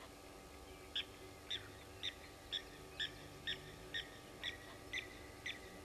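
Blacksmith lapwing calling: a run of about ten short, sharp notes, roughly two a second, starting about a second in.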